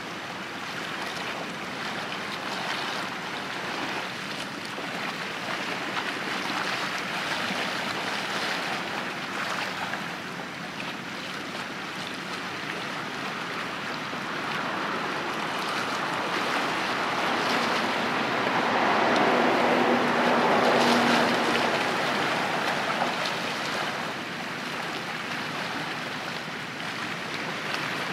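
Water washing from a passing ro-ro passenger ferry's bow wave and wake. The noise swells, and a low hum rises and fades about two-thirds of the way through as the ship draws level.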